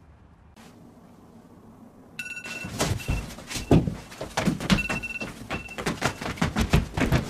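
Irregular thumps and knocks of a person in a mascot costume moving and stomping about on a hard floor, starting about two seconds in and coming several times a second. A short high electronic beep repeats on and off over the thumps.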